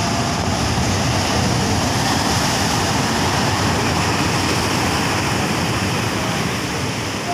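Sea surf breaking and washing in foam over shoreline rocks: a steady, loud rush of waves.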